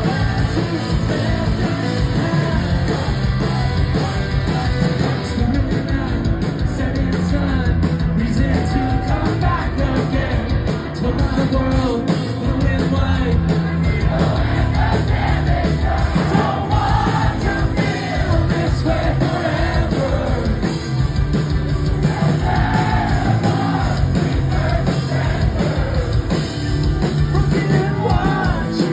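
Post-hardcore band playing live: distorted electric guitars, bass and drums at full volume under a male lead singer's yelled and sung vocals, heard from the crowd.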